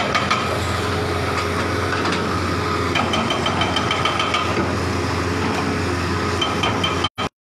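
Hitachi tracked excavator's diesel engine running steadily under load, with rapid knocking from its hydraulic breaker hammering at the demolition rubble. The sound cuts out abruptly about seven seconds in.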